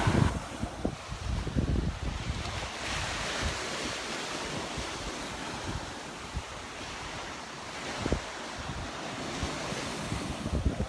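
Waves washing onto the beach, with wind buffeting the microphone in gusts, strongest near the start and again near the end.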